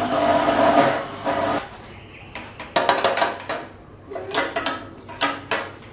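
Small electric coconut-grating machine's motor running with a steady hum, then switching off about a second and a half in. A string of sharp metallic taps and knocks follows as a spoon scrapes and knocks grated coconut out of the machine's steel chute into the metal bowl.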